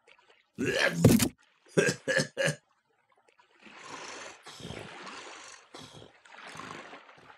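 A man's voice. A short loud vocal outburst comes about a second in, followed by three quick short vocal sounds. Then come about four long, breathy breaths, as of someone lying exhausted.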